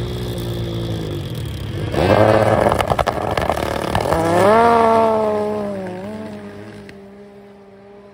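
Race snowmobiles at the start of a hill drag: engines held at revs on the line, then launching hard about two seconds in with a sudden loud surge of engine and track noise. The engine pitch climbs as they accelerate up the slope, then fades with distance.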